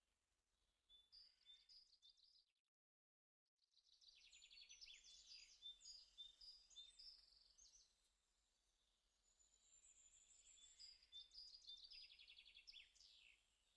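Faint birdsong: small birds chirping and trilling in quick runs of high notes. It is broken by about a second of complete silence around three seconds in.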